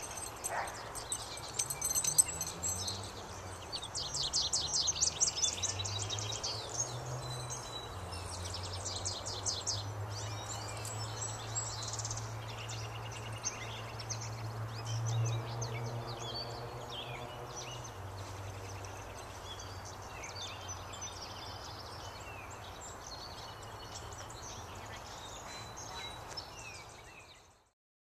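Outdoor ambience of birds chirping and singing over a steady low hum. The sound fades out near the end.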